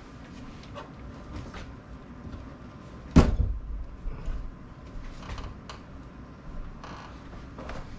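Scattered light knocks and clicks of things being handled, with one loud thump about three seconds in.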